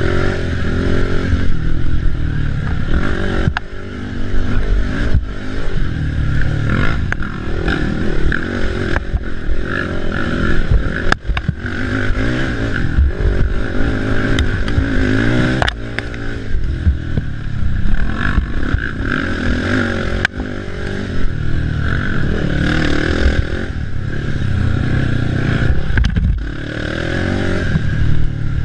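Racing ATV engine revving hard and easing off again and again, with knocks and clatter from the machine over rough ground.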